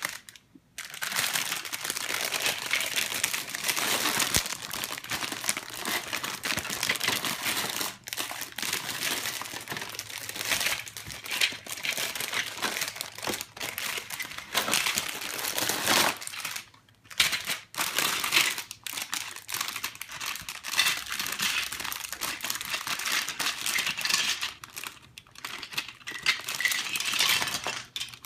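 Plastic packaging of a Lego set being handled and opened: continuous crinkling and rustling with many small clicks, broken by a couple of brief pauses a little past the middle.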